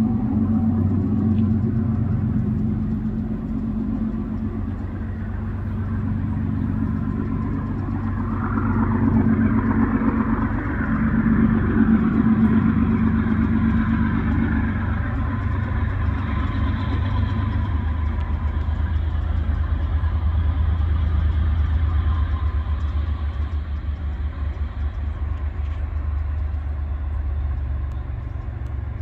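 Diesel freight locomotives running, a steady low engine drone that swells in the middle and eases off toward the end.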